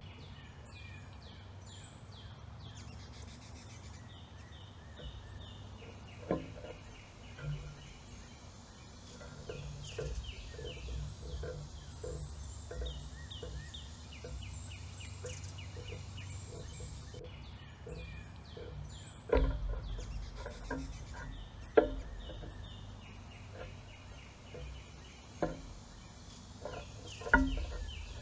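Backyard birdsong of repeated quick high chirping phrases over a low steady hum. Through it come soft taps and a few sharp knocks as small birds land and perch on the metal feeder pole and arm next to the microphone, the loudest about two-thirds of the way through.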